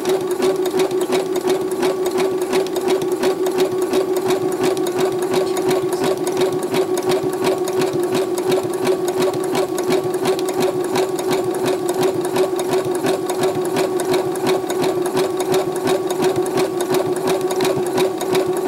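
Electric home sewing machine running steadily while stitching a zigzag seam through folded cotton: a constant motor hum with a fast, even clatter of needle strokes.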